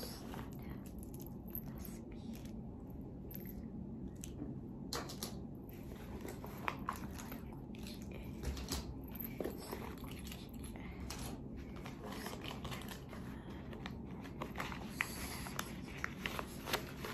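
Hands rummaging among small items inside a handbag: scattered rustling and light clicks and knocks, busier after the first few seconds, over a steady low hum.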